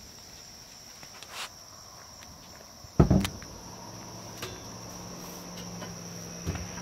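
Crickets chirring in a steady high drone, with a sudden loud thump about three seconds in and a softer knock near the end.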